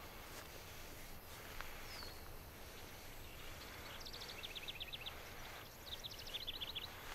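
Faint outdoor ambience with a low steady hiss, and a small bird giving two quick series of high chirps, about four seconds in and again near the end.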